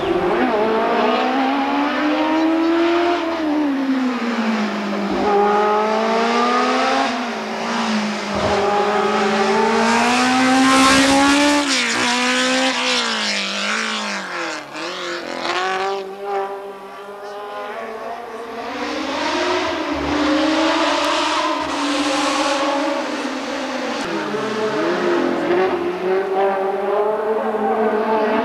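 Sports prototype race car engine at full throttle on a hill climb, its pitch climbing hard and then dropping again and again as it shifts gear and lifts for the bends. It drops quieter for a couple of seconds past the middle, then climbs again.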